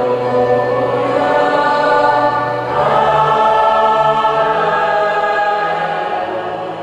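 A choir singing long held chords, moving to a new chord about three seconds in and starting to fade near the end.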